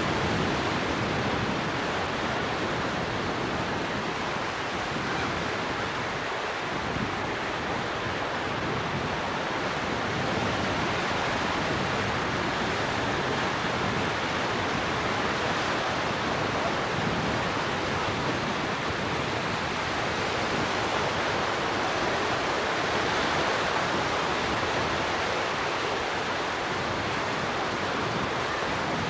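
Ocean surf breaking and washing ashore as a steady rush of noise, with wind blowing on the camcorder microphone.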